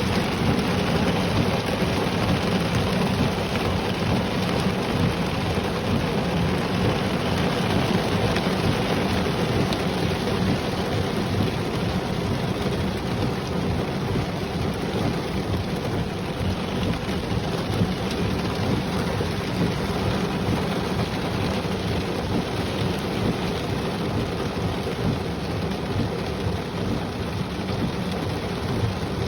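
Heavy rain pouring steadily, with a constant low rumble of thunder underneath.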